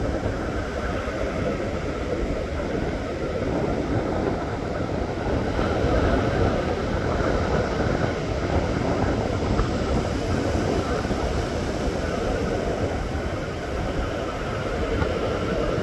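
Ocean surf breaking and washing up the beach: a steady low rush of waves.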